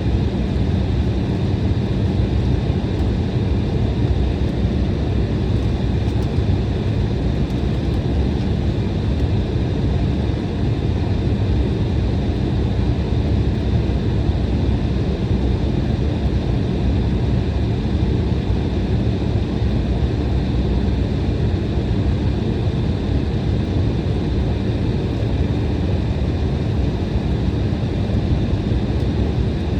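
Inside the cabin of an Embraer E175 airliner: its GE CF34-8E turbofan engines running at a steady setting, heard as a low rumble with a faint high whine.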